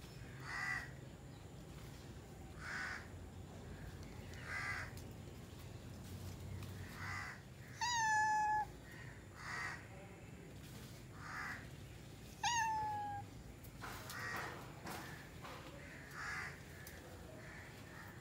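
A tabby cat gives two short, clear meows, one about eight seconds in and one about twelve seconds in, each dropping quickly in pitch and then holding steady. Softer harsh caws, like a crow's, repeat about every two seconds in the background.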